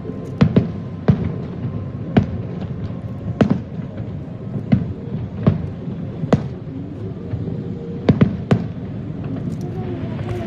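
Fireworks show: aerial shells bursting in a string of sharp bangs at irregular intervals, about a dozen, some in quick pairs, over continuous background noise.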